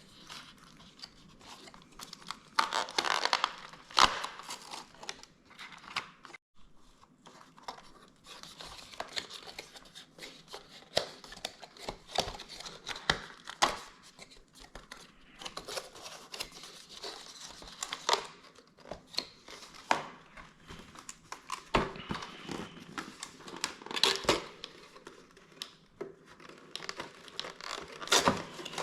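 Cardboard and paper packaging being torn open and crinkled by hand, with irregular clicks and taps from handling the coffee-capsule advent calendar.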